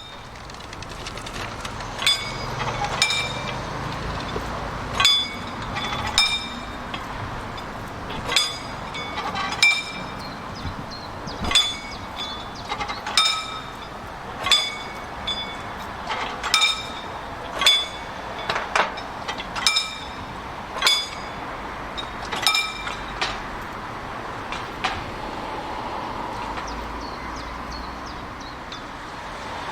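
Train wheels clicking over a rail joint as carriages roll slowly past: sharp ringing metallic clicks in pairs, one pair per bogie, repeating every few seconds over a low rumble, then petering out near the end.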